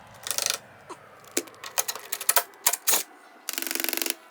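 Hand-tool work on metal: irregular clicks and light knocks, then a short run of rapid, evenly spaced clicking about three and a half seconds in, like a ratchet being turned.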